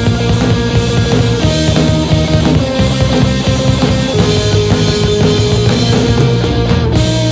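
Rock band recording playing: guitars and bass holding chords over a drum kit with a steady beat.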